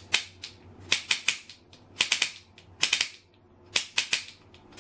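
Potato cannon's hand-held sparker clicking over and over, in quick groups of two or three about once a second, without setting off the cannon. Its electrodes are too far apart to make a spark.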